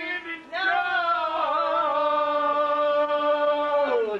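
A man singing, holding one long drawn-out note that sags slightly in pitch, stays steady, then falls away near the end.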